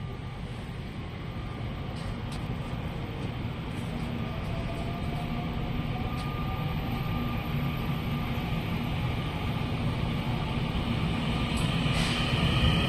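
Taiwan Railways EMU900 electric multiple unit pulling away from the platform: the whine of its electric traction drive rises in pitch as it accelerates, over a low rumble that grows louder.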